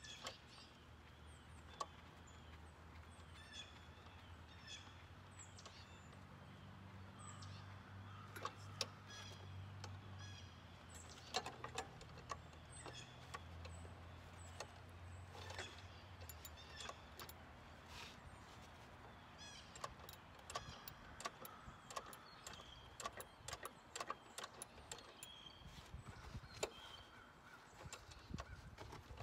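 Faint, scattered clicks and clinks of hand tools on the metal parts of a riding lawn mower being repaired. Birds chirp now and then, and a low steady hum runs through the middle.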